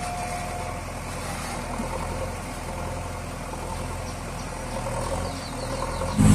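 JCB 3DX backhoe loader's diesel engine running steadily at idle, a low even hum.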